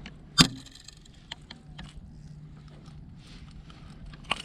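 Handling noise on a fishing boat while a bass is brought in: one sharp knock about half a second in, then scattered light clicks and rattles of tackle, over a faint steady low hum.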